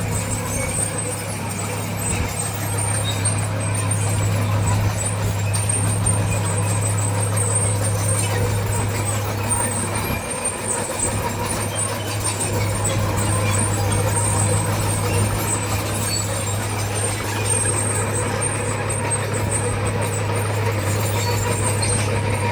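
Heavy diesel engine of earthmoving machinery running steadily at an even speed, a low drone that does not rise or fall.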